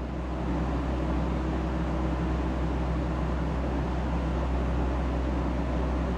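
Steady low hum and hiss of background noise, slightly louder from about half a second in.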